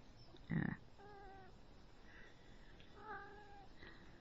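Young kitten mewing twice, two short, thin, high-pitched mews about two seconds apart. A short, muffled bump comes about half a second in.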